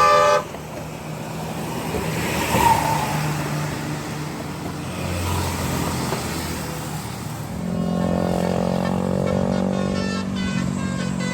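Road traffic passing over a bridge, with a heavy vehicle's engine hum coming up from about seven and a half seconds in. The last notes of a bus's telolet musical horn cut off right at the start.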